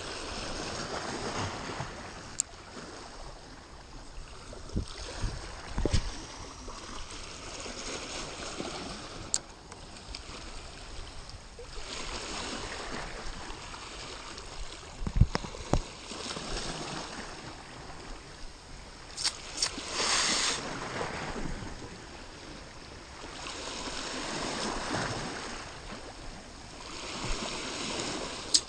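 Small sea waves washing and splashing over shoreline rocks, swelling and fading every few seconds, with a few brief knocks.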